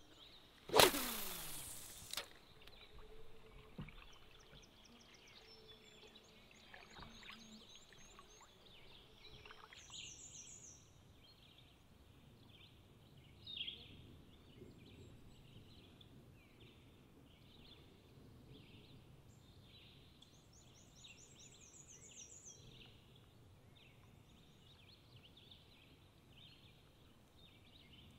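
A spinning rod's cast about a second in: a loud swish falling in pitch, which fades out by about two seconds in. After it comes faint outdoor ambience with small birds chirping at intervals.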